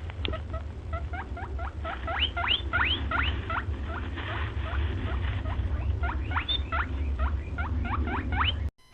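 Rabbit squeaking in a rapid series of short rising squeaks, about four a second, over a steady low hum. It cuts off suddenly near the end.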